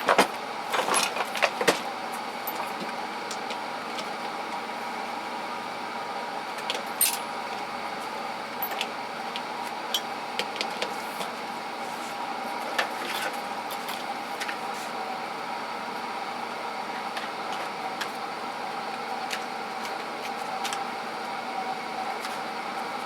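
Small metal tools clicking and clinking as they are handled and set down, with a quick cluster of knocks in the first two seconds and then scattered single clicks, over a steady background hum.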